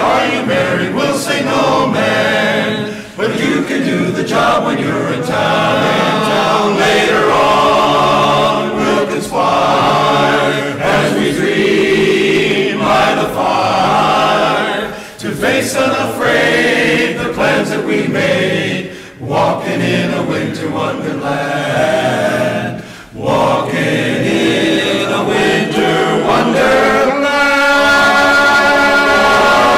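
Men's chorus singing in harmony, with short breaks between phrases and a long held chord near the end.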